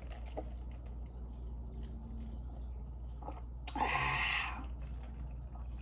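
A person chewing food with faint wet mouth clicks, and a short breathy rush about four seconds in.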